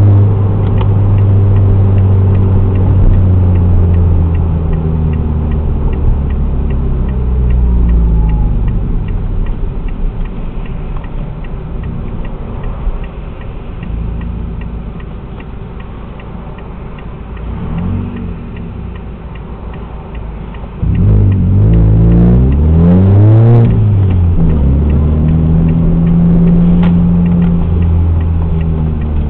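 Ford Fiesta Mk7 engine heard through a Friedrich Motorsport aftermarket exhaust. It runs steadily, goes quieter for about ten seconds, then suddenly gets louder about two-thirds of the way through with a few quick revs rising and falling, and settles on a steady held note.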